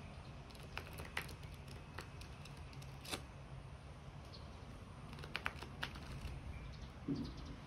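Tarot cards being shuffled and handled by hand: scattered light clicks and snaps of card stock over a faint steady low hum.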